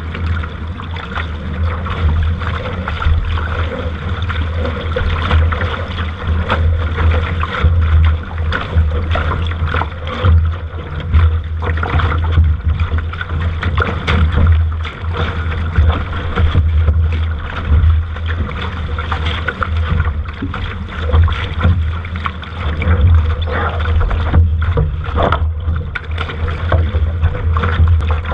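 Wind buffeting the microphone over water rushing and slapping against a sailing dinghy's hull, with many short splashes throughout.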